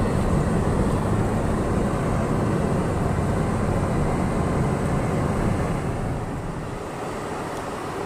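Car driving over a thick snow-covered road, heard from inside the cabin: steady low road and engine noise, easing a little about six seconds in.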